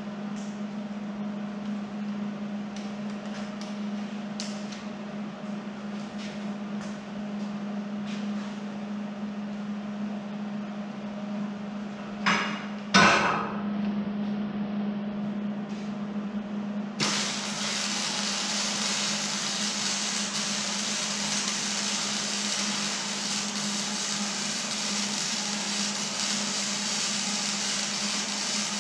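Wire-feed (MIG) welder arc welding steel, a steady crackling hiss that starts about two-thirds of the way in and runs on. Before it come light metal knocks and one loud clank about halfway through, over a steady low hum.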